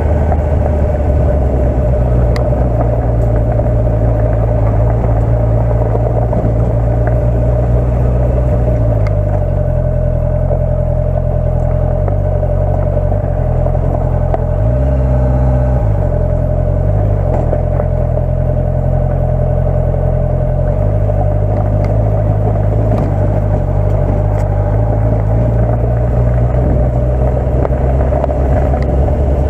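Honda CB650F's inline-four engine running at low revs, heard from on the bike as it rolls downhill. The engine note shifts about a third of the way in and dips and rises a few times around the middle as the revs change.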